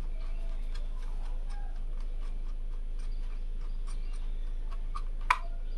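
Screwdriver turning the screw that holds a motherboard's metal M.2 heatsink: a run of small, irregular metallic clicks and ticks, with one sharp, louder click near the end.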